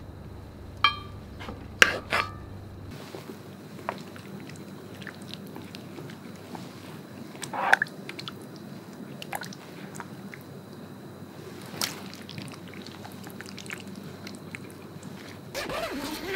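A metal spoon clinks against a metal rice pot three times about a second or two in, each clink ringing briefly. Soft clicks and scrapes of serving rice and curry onto a wooden plate follow.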